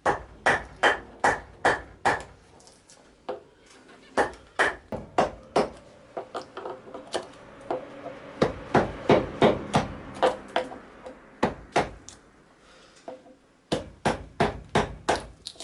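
Repeated sharp knocks of a hand tool striking wild cherry wood during kuksa carving, about two to three strikes a second, with a short pause a little after twelve seconds in.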